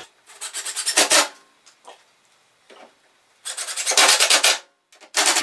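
A power drill driving two wood screws into a glued wooden strip, each screw a loud rasping burst about a second long, with short blips of the drill between.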